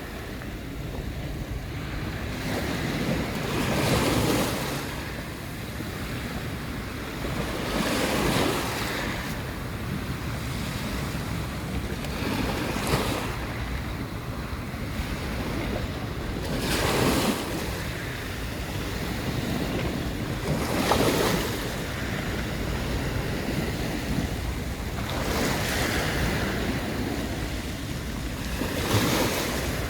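Sea waves breaking on the shore, a swell of surf about every four seconds over a steady wash, with wind rumbling on the microphone.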